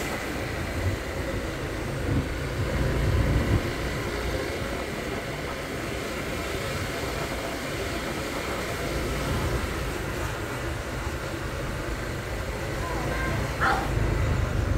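Steady rumble of a moving motorbike: wind and road noise on the microphone, with the bike's running sound underneath. A brief pitched sound cuts through about 13 seconds in.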